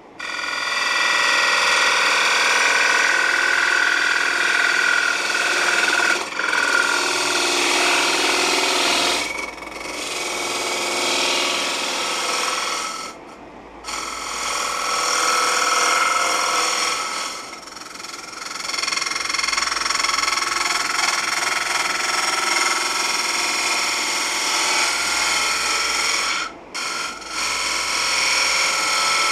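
A gouge cutting a spinning Russian olive bowl on a Laguna Revo 12/16 wood lathe: a steady scraping hiss of shavings coming off, with steady tones running through it. It breaks off briefly a few times as the tool is lifted from the wood, the longest gap about halfway through.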